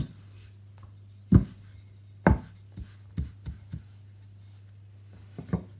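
A wooden rolling pin and hands knocking and thudding on a kitchen worktop while puff pastry is rolled out. The knocks come irregularly: two loud ones between about one and two and a half seconds in, then several lighter ones. A steady low hum runs underneath.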